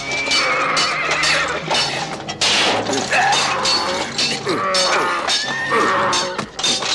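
Cartoon sound effects of a mounted sword fight: swords clashing again and again, and a horse whinnying, over background music.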